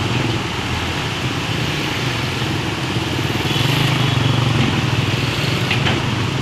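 Diesel engine of a fuel tanker truck running with a steady low hum as the truck drives slowly past through flood water. The hum swells a little about halfway through.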